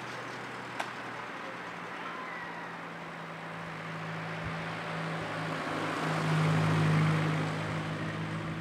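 A motor vehicle driving: a steady engine hum and road noise that swell louder about six seconds in, with one brief click about a second in.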